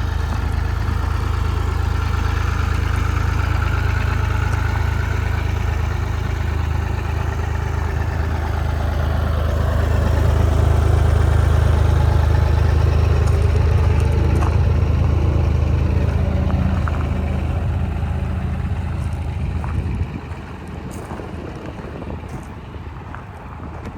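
Bobcat E35 R2 mini excavator's diesel engine running steadily, louder for several seconds in the middle. It cuts off suddenly near the end, leaving a quieter background with a few faint clicks.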